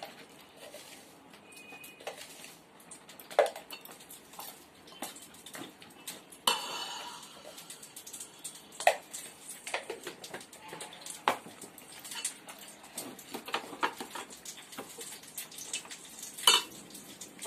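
A spoon stirring and scraping in a pot of cooked pongal, with scattered sharp clinks against the pot; the loudest clink comes about six and a half seconds in and another near the end.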